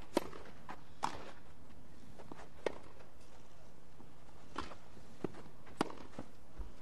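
Tennis rally on a grass court: the sharp pock of rackets striking the ball, starting with a serve and going back and forth about six times at uneven intervals. The serve is the loudest hit.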